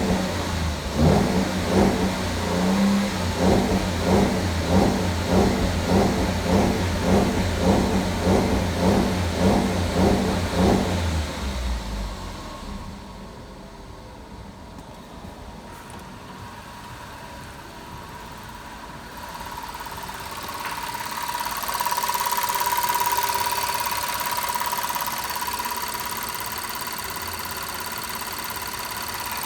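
Audi A6 petrol V6 engine making a strange rhythmic noise that pulses about one and a half times a second, the crackle the owner calls odd but pleasant. It stops about eleven seconds in and goes quieter, and a steady high whine builds up in the last third.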